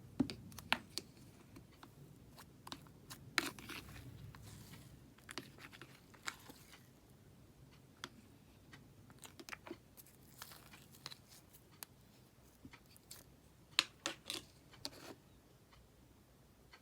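Green bubble-layer slime being played with, its trapped air bubbles giving off irregular crackles and sharp little pops. The sharpest pops come about a second in, around three and a half seconds in, and around fourteen seconds in.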